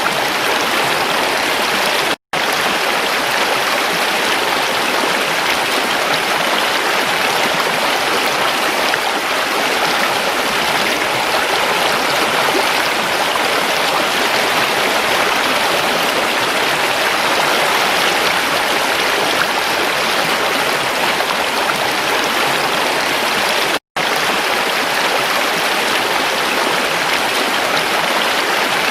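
Creek water flowing steadily, an even, continuous sound. It cuts out for an instant twice, about two seconds in and near the end.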